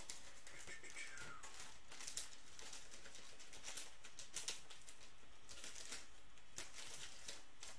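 Faint rustling and light clicks of foil trading-card packs being handled and sorted by hand.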